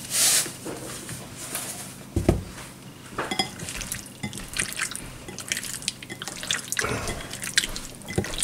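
Salt hisses briefly from a carton onto raw chicken, then a bare hand squelches and squeezes chicken pieces in a glass bowl of sticky sauce, with many small wet clicks and a couple of dull thumps.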